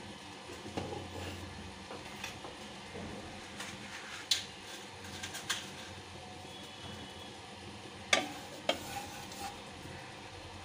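Mustard oil heating in a non-stick wok with a faint, steady hiss as it comes up to temperature, and a few sharp clicks of a utensil against the pan.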